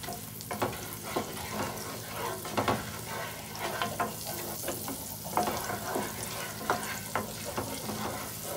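Butter melting in a frying pan, sizzling faintly as a spoon stirs it, the spoon knocking and scraping against the pan every second or so. A steady low hum sits underneath.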